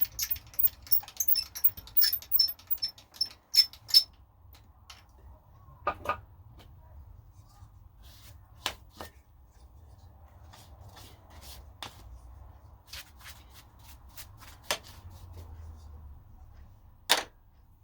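Clicks and light metallic knocks from metal tools and parts being handled on a workbench: a quick run of ringing ticks in the first four seconds, then scattered single knocks.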